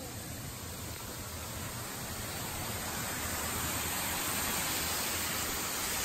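Steady rush of a waterfall, its water sliding and splashing down a sloping rock face, growing gradually louder.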